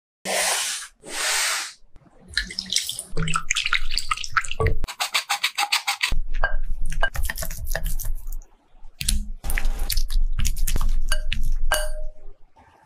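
Baking preparation sounds in short separate takes: two short bursts of hiss near the start, then a hand-squeeze flour sifter clicking quickly over a glass bowl, and a wire balloon whisk beating batter against the glass.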